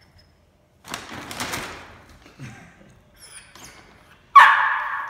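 Brown paper bag crinkling and rustling as a small dog paws and noses at it, then a sudden loud sound near the end that fades over about a second.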